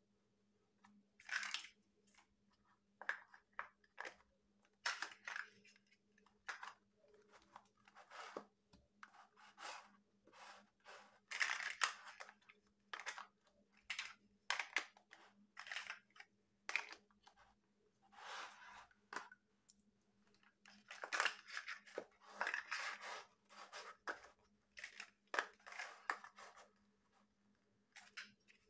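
Large hollow plastic building blocks handled and pressed together: irregular clicks and clatter of plastic on plastic as bricks are picked from a pile and pushed onto a stack. A faint steady hum runs underneath.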